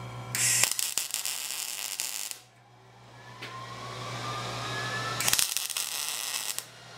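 MIG welder laying short welds on a steel tray: two bursts of steady crackling, the first about two seconds long and the second a little over a second, with a quieter hiss between them.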